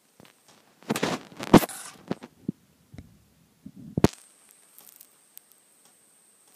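A rabbit tugging and chewing at a piece of its food tied to a string: a cluster of crackles and sharp clicks about a second in, then one more sharp click about four seconds in.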